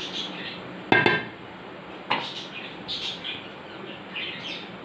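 A wooden spoon knocks against a steel cooking pot about a second in, leaving a brief metallic ring, and knocks again more lightly around two seconds in. Birds chirp in the background throughout.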